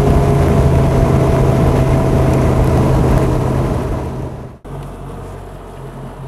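Bass boat's outboard motor running at speed, a loud steady engine drone with a rush of wind and water. About four and a half seconds in it drops abruptly to a quieter, steady engine hum.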